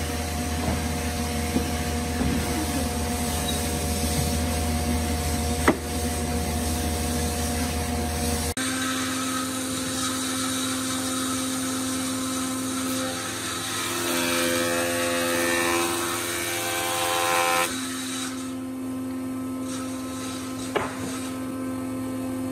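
A few sharp mallet knocks on stacked wooden blocks over a steady machine hum. After a cut, a jointer runs steadily as a thick hardwood block is pushed across its bed over the cutterhead.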